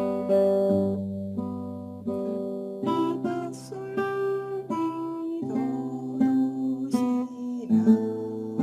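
Classical guitar played solo, fingerstyle: a slow melody of plucked notes and chords ringing over held bass notes.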